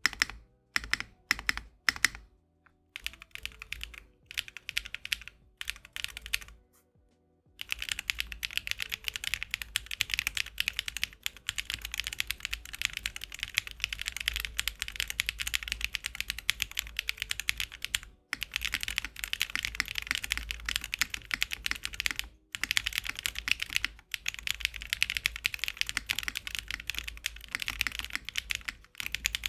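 Mechanical keyboard with pre-lubed MZ Y1 switches, mounted in a Tofu 60 2.0 board, being typed on: spaced single keystrokes at first, then fast continuous typing from about a quarter of the way in. Each keystroke clacks evenly, a loud, slightly full sound.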